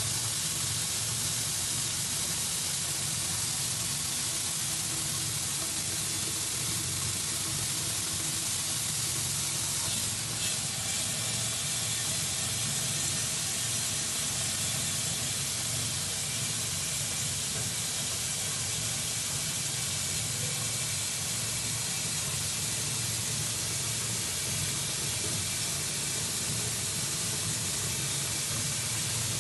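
Grain pouring in a continuous stream down the perforated stainless-steel sieve of an Arska weed-seed screen on a grain dryer, making a steady rushing hiss over a low machinery hum.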